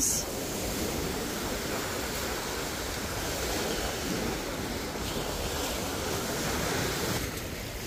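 Small lake waves breaking steadily on a sandy shore, a constant rushing wash of surf.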